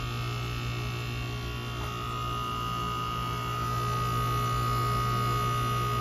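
Goodman GSZ14 heat pump outdoor unit running: a steady low hum with a fainter, steady high tone above it.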